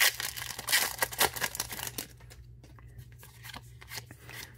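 A foil booster pack wrapper being torn open and crinkled, a dense crackle for about two seconds, then quieter clicks and rustles as the trading cards inside are handled.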